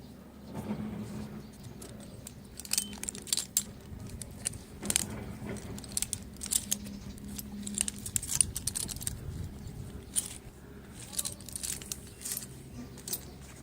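Light metallic clinking and jingling of loose metal gear: a dozen or so sharp, irregular clinks over a faint steady low hum.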